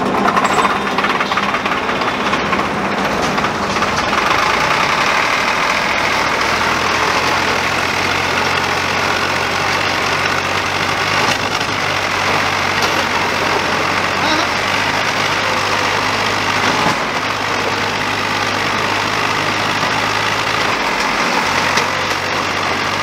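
Diesel tractor engine running steadily, with a deeper steady drone setting in about six seconds in.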